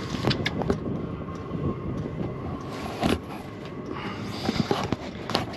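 Camera handling noise: a series of sharp knocks, clicks and scrapes as the camera is moved about, over a steady low rumble. The loudest knock comes about three seconds in, with a cluster of them near the end.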